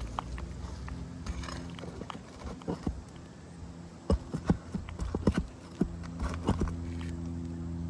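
Irregular sharp knocks and taps of hand tools working loose asphalt shingles on a roof, coming in quick clusters in the second half, over a steady low hum.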